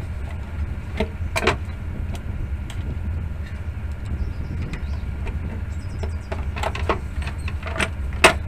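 Steady low hum under scattered clicks and knocks of hands handling a CRT television's plastic back cover, chassis and cables, with the loudest knock near the end.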